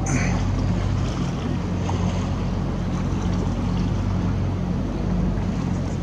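A tour boat's engine running with a steady low hum, under wind and water noise.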